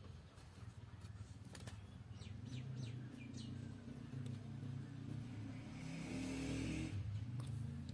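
Faint outdoor background: a small bird gives four quick falling chirps about two and a half seconds in, over a steady low hum. There are a few light clicks of the wooden clamping jig being handled, and a brief rushing noise near the end.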